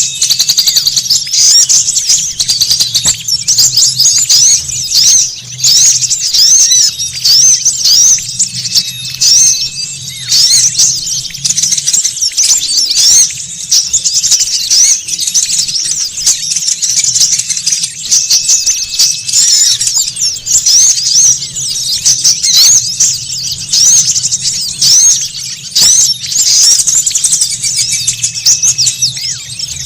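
Bird-lure recording of small songbirds chattering noisily: a dense, unbroken stream of quick high chirps and twitters, over a faint low hum.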